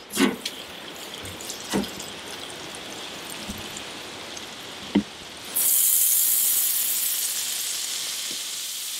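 A few sharp knocks, then butter hitting the hot flat-top griddle plate of a gas grill starts sizzling suddenly a little past halfway. The sizzle is loud at first and slowly fades as the butter melts.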